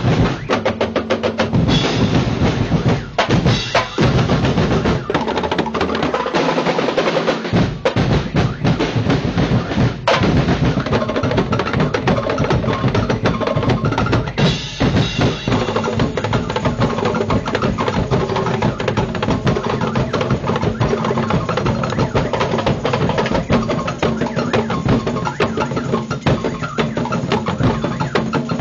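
A festival drum corps of large bass drums and snare drums playing together in a loud, fast, driving rhythm, with a few brief breaks in the beat in the first fifteen seconds.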